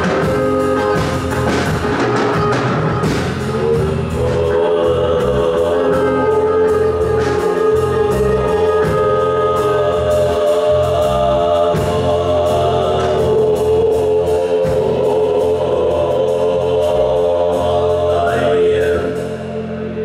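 Live band music: drum kit, electric guitar and bass guitar, with singing in long held notes. The song comes to its end about a second before the close.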